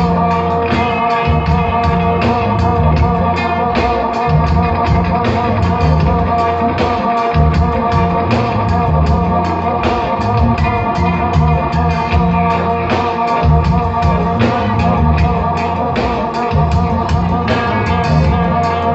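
Live rock band playing: electric guitar and keyboards holding chords over a drum kit keeping a steady beat, with some singing.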